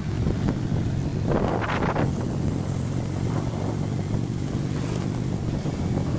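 Motorcycle engines running in a moving convoy, recorded from one of the bikes, with a steady low rumble and wind buffeting the microphone. A brief louder burst comes about a second and a half in.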